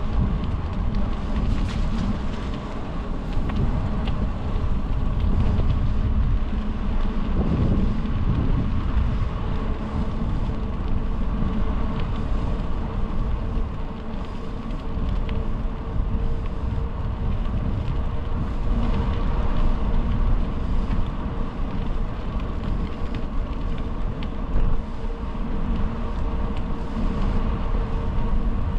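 Wind rumbling on the microphone and tyre noise from a moving bicycle, with a faint steady hum underneath.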